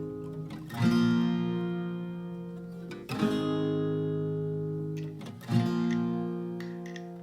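Background music: acoustic guitar strumming a chord about every two and a half seconds, three times, each chord left to ring and fade.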